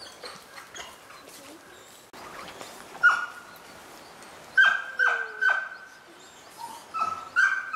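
Short, sharp animal calls, each at one steady pitch: one about three seconds in, a quick run of three about a second and a half later, then two more near the end.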